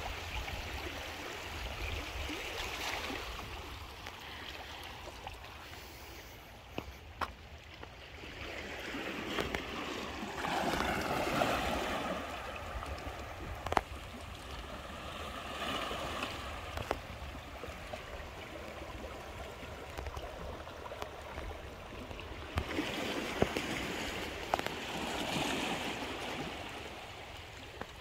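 Small sea waves washing in among shoreline rocks and rock pools and draining back, swelling and fading every few seconds, with a few sharp clicks.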